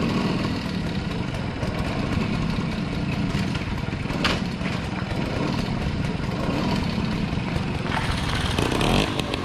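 Small two-stroke moped engine running steadily.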